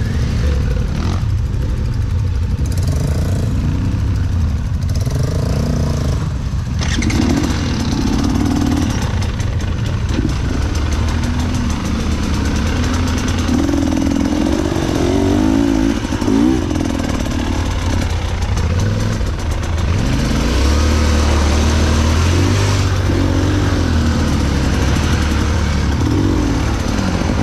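Enduro motorcycle engine running while being ridden off-road, its revs rising and falling.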